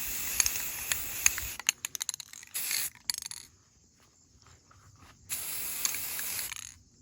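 Aerosol can of metallic chrome spray paint spraying in bursts: a long hiss of about a second and a half, a crackle of short sputtering spurts, then another long hiss near the end.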